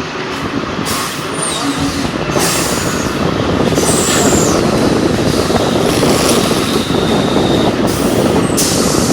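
Carousel garment ironing press running: a loud, steady machine noise with several hissing releases that start and cut off sharply as the pressing heads work.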